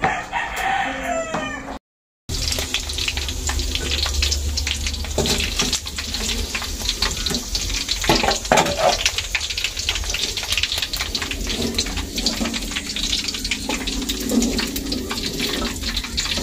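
Pork pieces sizzling and crackling as they fry in oil in a steel wok, turned now and then with a metal spatula. A rooster crows in the first couple of seconds.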